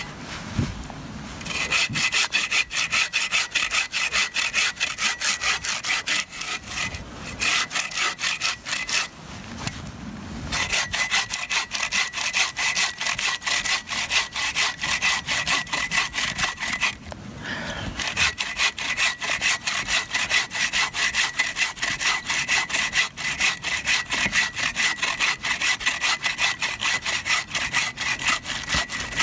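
Hand saw cutting through a firewood log in fast, even back-and-forth strokes, with a steady ringing from the blade. The sawing stops briefly three times, about a second in, around the ten-second mark and around the seventeen-second mark.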